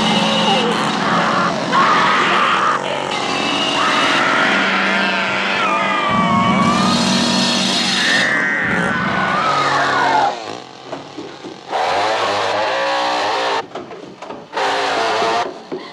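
Gasoline chainsaw running and revving, with a woman's drawn-out, terrified screams over it. About ten seconds in, the continuous noise breaks off into shorter loud bursts.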